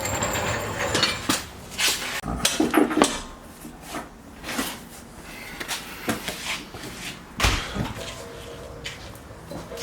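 Irregular metallic clanks, knocks and clinks of tools and steel parts being handled during work on a Jeep's suspension, some with a short ring.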